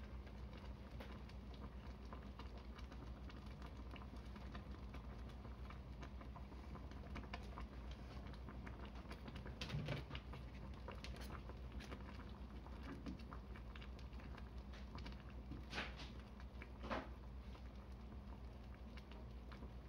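Pot of curry simmering quietly, a faint pattering of small bubbles popping. A soft knock about halfway, and two sharp clicks near the end as long cooking chopsticks go in to stir.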